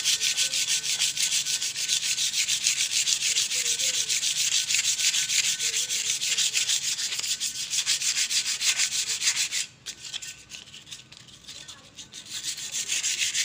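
Hand-sanding the rusty, painted steel top tube of a bicycle frame with sandpaper, stripping the old paint and rust before repainting. Quick, even back-and-forth scraping strokes that turn softer and sparser about ten seconds in.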